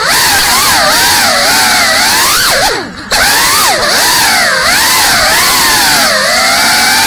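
GEPRC CineLog 35 FPV drone's brushless motors and ducted propellers whining, the pitch swooping up and down constantly with the throttle. About three seconds in, the throttle is briefly chopped and the whine drops away for a moment before surging back.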